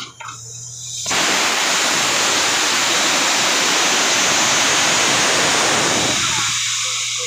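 Borewell drilling rig blowing compressed air through the hole: a loud, steady rushing hiss that starts suddenly about a second in, under which the rig's engine hum is heard before and near the end.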